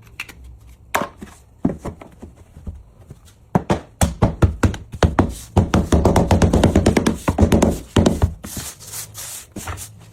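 Repeated knocks and taps on laminate flooring: a few single knocks, then a fast, dense run of knocks from about four to eight seconds in.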